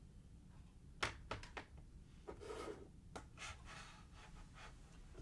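Faint handling sounds: a few light taps and clicks about a second in, a short soft rub in the middle, then a few more light taps.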